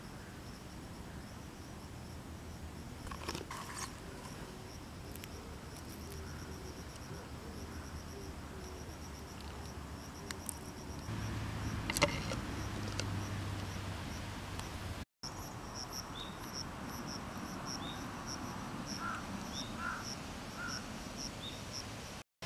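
Insects chirping steadily outdoors, a short high chirp repeating about twice a second. A single sharp knock about halfway through.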